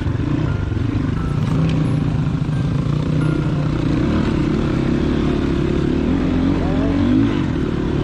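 Crossfire Cross X 250 SE dual-sport motorcycle's single-cylinder engine running steadily, heard from on board as it is ridden over a rutted, muddy dirt track.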